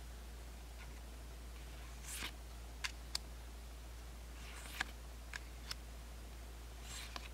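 Pokémon trading cards handled and flipped through one at a time: a few brief soft swishes of cards sliding across each other and about half a dozen small sharp clicks of card edges, spaced irregularly. A faint steady low hum sits underneath.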